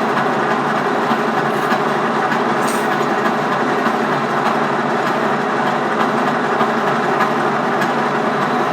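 Center lathe running steadily under power, its gearing and spindle giving a dense, even mechanical hum while the cross slide is fed for a facing cut.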